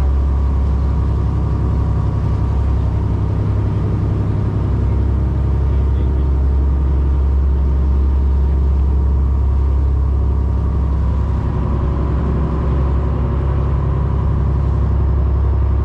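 Fishing boat's engine running steadily with a loud, deep, constant drone, as heard on board while the boat is underway.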